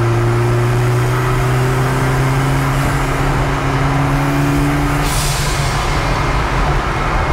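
Rear-mounted Volvo 1.9-litre 16-valve turbo four-cylinder engine of a ZCars Hillman Imp running on the move, its note rising gently, then a sudden hiss about five seconds in as the upper engine tones drop away.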